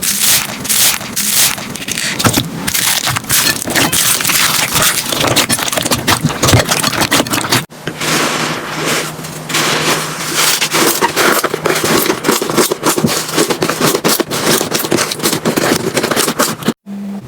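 Slime being handled and pressed, making a dense, continuous crackling and scraping noise. The sound breaks off for an instant about eight seconds in and picks up again.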